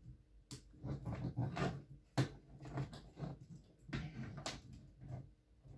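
Plastic K'Nex rods and connectors clicking and rattling as a built model is handled and reshaped by hand, in a string of sharp clicks.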